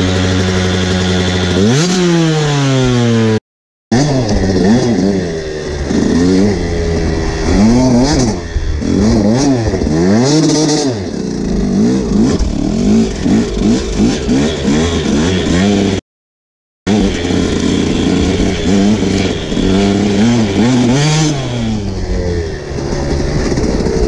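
KTM SX 125 two-stroke dirt bike engine being ridden hard through snow: a steady note for a couple of seconds, then revving up and down over and over as the throttle is worked. The sound cuts out completely twice for a moment.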